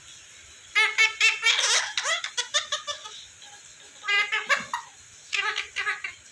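Indian ringneck parrot chattering in three spells of quick, high-pitched, giggle-like calls.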